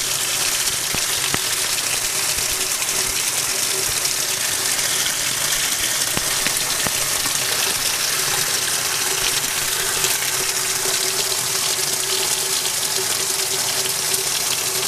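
1996 Maytag Performa washing machine running with a steady rush of water through the machine and a steady hum from its motor or pump.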